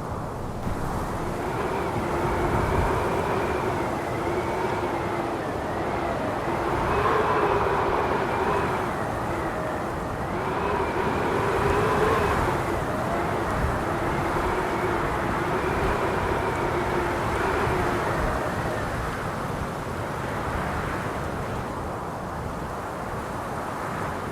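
Howling wind with wavering whistling tones that slide up and down, swelling and easing in gusts.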